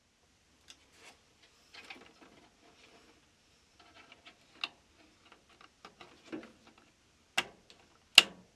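Plastic wiring-harness connectors being handled and pushed onto a dryer's electronic control board: light clicks and rattles of plastic and wire, with two sharp plastic clicks near the end.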